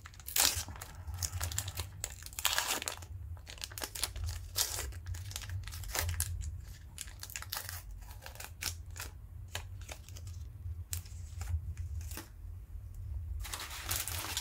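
A plastic trading-card pack wrapper being torn open and crinkled by hand, a long run of sharp rips and crackles.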